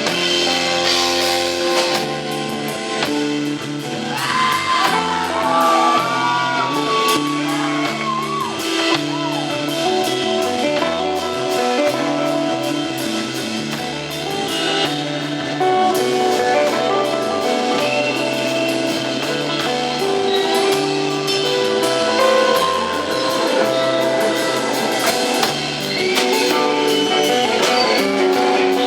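Live instrumental rock band playing: electric guitar melody over a moving bass line and drum kit, with bent, gliding guitar notes about four to eight seconds in.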